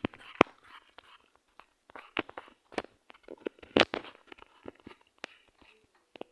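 A string of irregular sharp clicks and knocks with short rustling noises between them; the loudest knocks come about half a second in and near the four-second mark.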